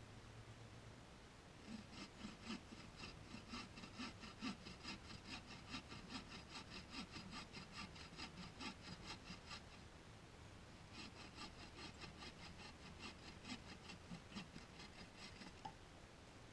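Faint hand saw cutting through a dead branch: steady back-and-forth strokes for about eight seconds, a pause of about a second, then several more seconds of sawing that stop shortly before the end.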